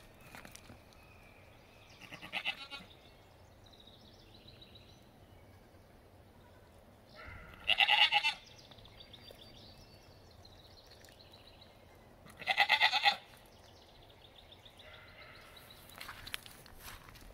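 Nigerian Dwarf goats bleating: a short, quieter bleat about two seconds in, then two loud, wavering bleats about eight and thirteen seconds in.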